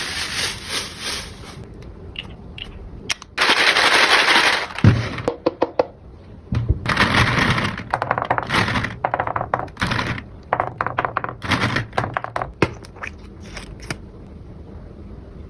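Packaging being torn open and handled: bursts of ripping and crinkling about a second long, mixed with runs of quick crackling snaps.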